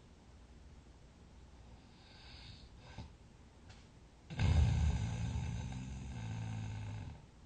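A sleeping person breathing softly, then about four seconds in one loud, low snore that lasts about three seconds before dropping back to quiet breathing.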